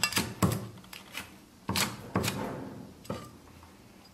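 Chinese cleaver slicing small red bird's eye chilies on a wooden chopping board: about six sharp knocks of the blade meeting the board, unevenly spaced and thinning out, the last about three seconds in.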